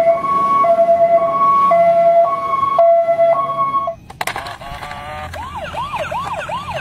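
A police van's two-tone hi-lo siren, two pitches alternating steadily. About four seconds in it cuts to a quieter toy police van's electronic siren, a fast up-and-down wail about three times a second.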